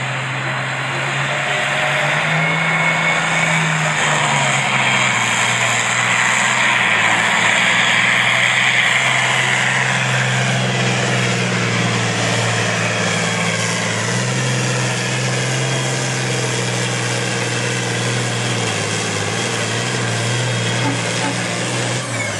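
Diesel engine of an International Harvester pulling tractor working hard under load as it drags a weight-transfer sled. The engine note is loud and continuous, rising and dipping slightly in pitch.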